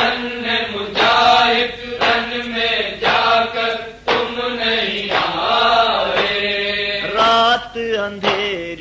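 An Urdu noha, a mourning lament, chanted by male voices holding long level notes, with a steady beat about once a second.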